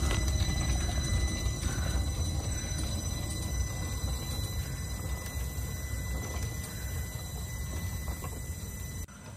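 A 2-foot-gauge electric box motor car running along the track, its AC-motor-driven truck rolling away: a low rumble of wheels on rail with light clicking and a steady high whine, fading as the car moves off. The sound drops abruptly near the end.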